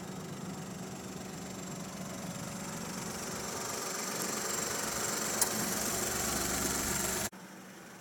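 Citroen C3's 1.2-litre three-cylinder PureTech petrol engine idling with a steady hum that grows louder, with one sharp click about five and a half seconds in. The sound drops suddenly to a quieter hum near the end.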